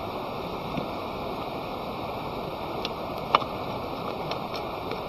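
Steady rush of running water, with a few faint clicks and one sharp click a little past halfway.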